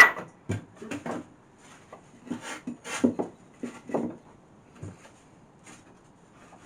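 Pallet-wood boards knocking and clunking as a plank is handled and laid across into place: a sharp knock at the start, a run of lighter knocks over the next few seconds, and another sharp knock at the end.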